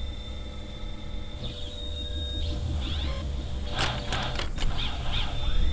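Designed soundtrack effects: a low rumbling drone under a steady high electronic tone, with short chirping sweeps and a cluster of crackling clicks about four seconds in.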